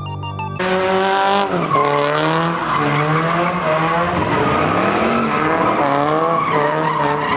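A car doing donuts: its engine revs rise and fall over and over while the spinning tyres squeal on the pavement. Electronic music cuts off about half a second in.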